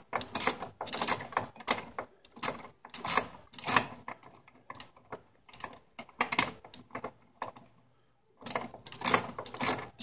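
Socket ratchet wrench clicking in quick bursts of strokes as it tightens the disc-brake caliper mount bolts, with a short pause about eight seconds in before the clicking resumes.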